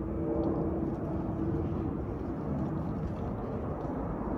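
Twin-engine Airbus widebody jet airliner departing overhead: a steady engine rumble with a faint droning hum.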